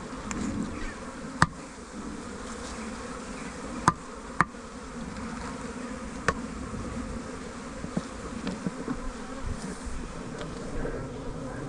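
Honeybees buzzing from a colony being shaken out of its hive onto the ground, with a few sharp knocks spread through it.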